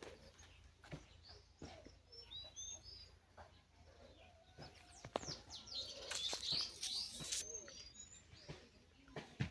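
Small birds chirping in short high calls. A louder burst of rustling noise comes about six seconds in and lasts about a second and a half, with scattered light clicks throughout.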